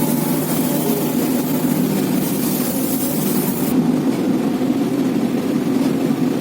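Heavy diesel engine running steadily at a low, even pitch, with a high hiss over it that stops a little past halfway.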